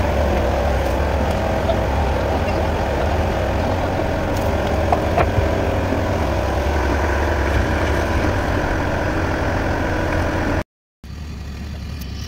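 An engine idling steadily with a deep, even low drone. Near the end it breaks off for a moment and then goes on quieter.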